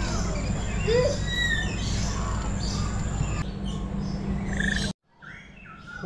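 Several birds chirping and whistling in short gliding calls over a steady low hum. The sound cuts off abruptly about five seconds in, leaving only faint chirps.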